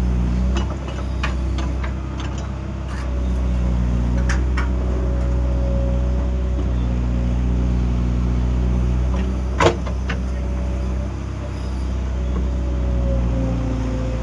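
Excavator's diesel engine running steadily, its note shifting as the load changes, with a few light knocks early on and one sharp, loud knock about two-thirds of the way through.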